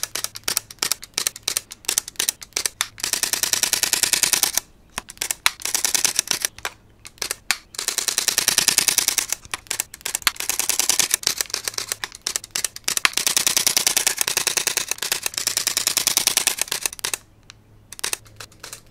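Digital camera shutter firing: single clicks and short strings, then long continuous bursts of very fast shutter clicks, each lasting a few seconds.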